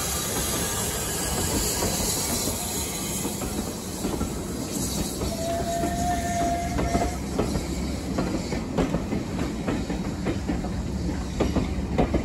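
Steam tank engine and its passenger coaches rolling past at close range. Steam hiss comes first as the engine goes by. About halfway through a brief steady high tone sounds, then the carriage wheels clack over the rail joints in a run of sharp knocks.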